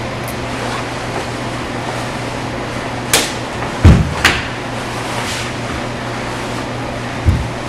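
Quick karate kata moves: the uniform snaps sharply twice about three seconds in, with a heavy thud of bare feet on the wooden floor between the snaps and another thud near the end, over a steady background hum.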